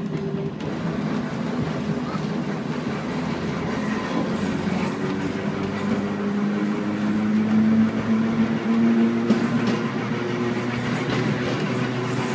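Glasgow single-deck electric tram running along its track: wheels rattling on the rails, with the motors' hum rising in pitch from a few seconds in as the tram gathers speed.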